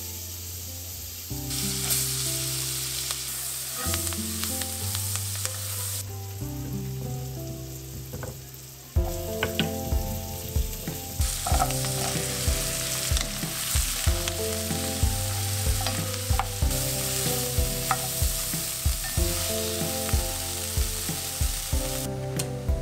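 Onions and diced butternut squash sizzling in melted butter in a pot, stirred with a wooden spoon. Soft background music with a steady beat plays underneath.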